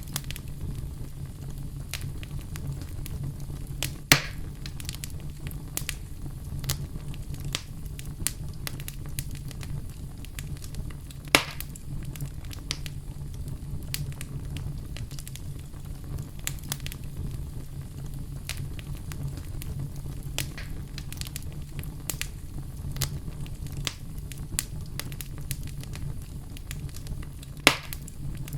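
Wood campfire crackling: frequent small crackles over a steady low rumble, with three much louder, sharp pops spread through.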